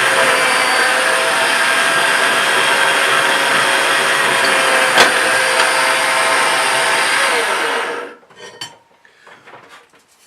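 Cheap benchtop drill press running and drilling a tool-steel knife blank, a steady motor whine with one sharp click about five seconds in. About eight seconds in it is switched off and quickly winds down, leaving a few light knocks.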